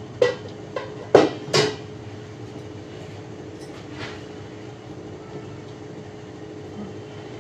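A steady electrical hum, with four sharp knocks in the first two seconds and a fainter one about four seconds in.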